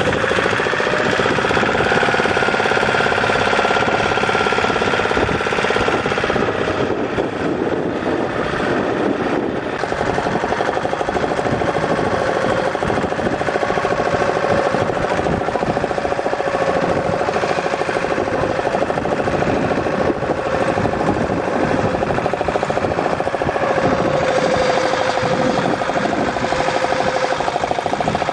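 Boat engine running steadily, with a rapid even chugging pulse and a pitch that drifts slightly now and then.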